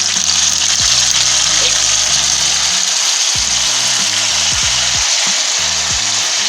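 Minced-meat cutlets sizzling loudly in hot oil in a frying pan, a steady hiss.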